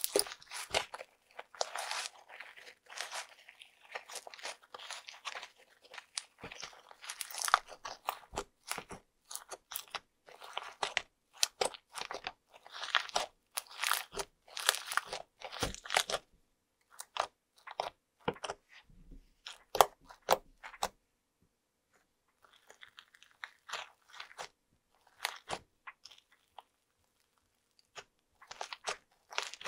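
Fluffy slime with small foam beads being squeezed, poked and stretched by hand, giving a rapid run of small squishy pops and clicks. The pops come thick and fast through the first half, then thin out into short clusters with brief pauses.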